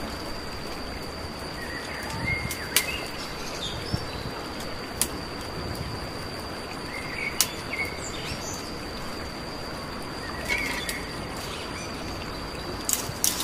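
Dry twigs snapping by hand, a few sharp cracks spread out and a quick cluster near the end. Under them run a steady high insect drone and occasional short bird chirps.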